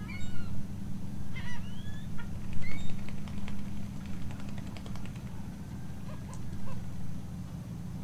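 A flock of water birds on a lagoon calling: short nasal calls that bend in pitch, a few times in the first three seconds, then a quick chattering series of clicks, over a steady low rumble.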